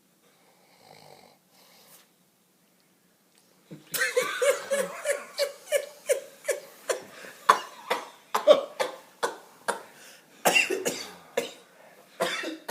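A faint snore, then from about four seconds in a long run of rapid, choppy coughing and laughter, several bursts a second.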